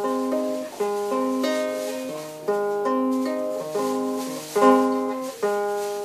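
A small acoustic guitar strummed in slow chords, about six of them, each letting ring before the next change. The last chord rings out and fades away near the end.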